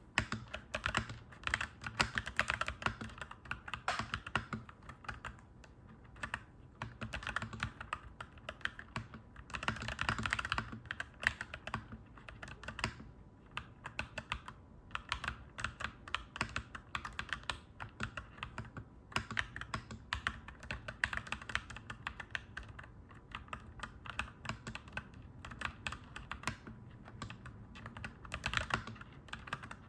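Clacky mechanical keyboard being typed on: a dense, fast run of key clacks with a few short pauses.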